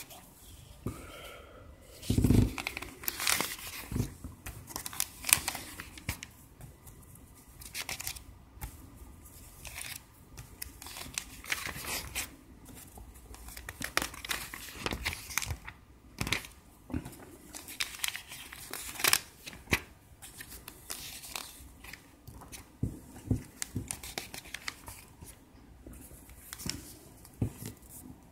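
Pages of a printed IKEA catalogue being turned and handled, with irregular paper rustling and crinkling throughout and one heavier thump about two seconds in.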